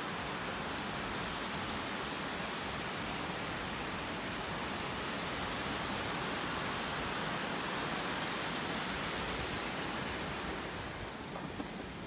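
Mountain stream rushing and splashing over rocks in a small cascade, a steady hiss of water that eases slightly near the end.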